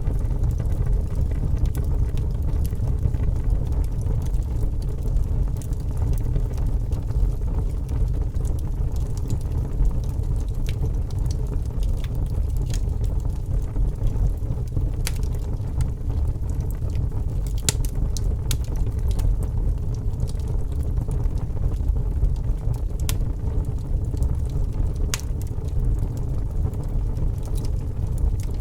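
Fire burning, with a steady low roar of flames and scattered sharp crackles and pops.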